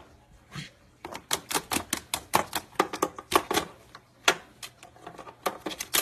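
A parrot's beak nibbling and biting at a cord: a quick run of sharp clicks and crunches, about five a second, thinning out after the middle.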